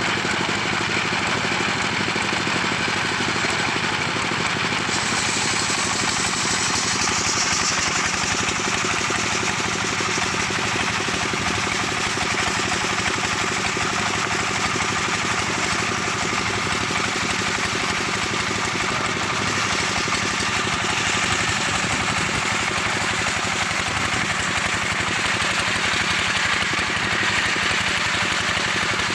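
Engine of a homemade circular sawmill running steadily, with a constant hiss above the engine note.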